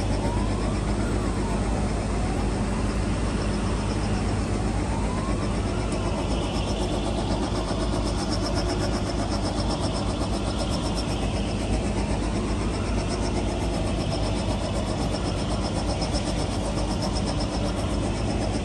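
Loud, steady industrial machinery noise inside a ship's hull under construction at a shipyard, with a low hum. Through it runs a tone that keeps rising and falling about once a second.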